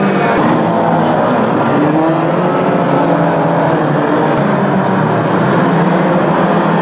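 Engines of several 2-litre banger racing cars revving together as the pack races, a dense mix of engine notes rising and falling.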